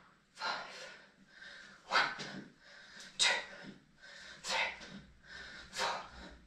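A person breathing hard while exercising: five strong, rhythmic exhales, about one every 1.3 seconds, in time with the reps of a warm-up movement.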